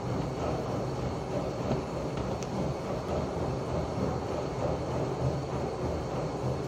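A steady low rumbling noise that runs evenly with no distinct events.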